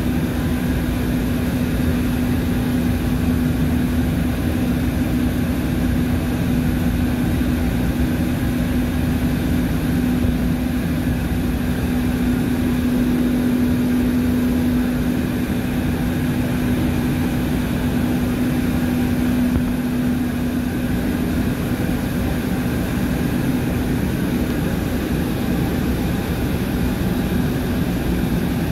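Ship's engine room with its large diesel machinery running, a loud unbroken drone with a steady hum held at one pitch throughout.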